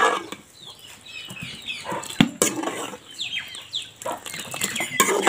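Chickens clucking in short falling calls, with a couple of sharp clinks of a metal ladle against an aluminium cooking pan about two seconds in.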